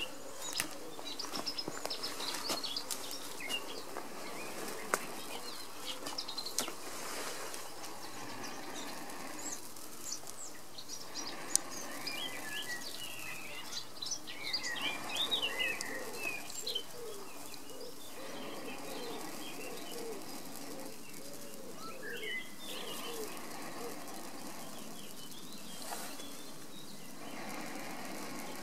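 Long, repeated breaths blown into a smouldering bundle of dry grass tinder to coax it into flame, each puff a rush of air lasting a couple of seconds, with short pauses between. Songbirds chirp and sing throughout.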